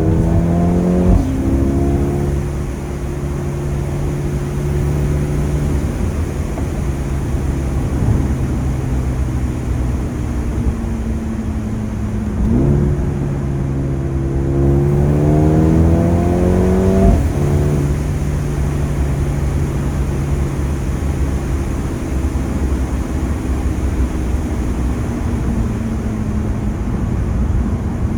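Mercedes-AMG A35's turbocharged four-cylinder engine and exhaust under spirited driving. The engine note falls slowly as the car lifts off, jumps up about twelve seconds in and climbs under hard acceleration, then drops at a gearshift near seventeen seconds and falls away again. A few sharp exhaust pops are heard, the loudest at that shift.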